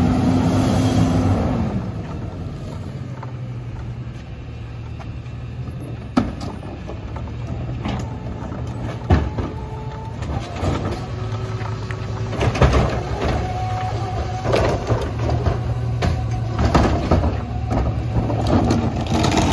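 Autocar ACX rear-loader garbage truck's diesel engine running at idle, its pitch easing down in the first couple of seconds. A couple of sharp knocks come about six and nine seconds in, then busier clanking and banging as bags and carts are worked into the rear hopper.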